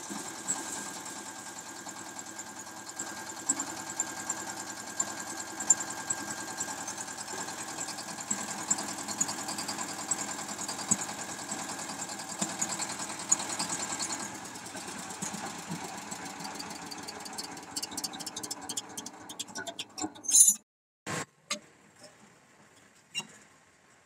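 A new 1.5-bag concrete mixer's single-cylinder diesel engine running steadily. It weakens after about fourteen seconds and stops abruptly near twenty seconds, followed by a couple of short loud knocks and faint clicks.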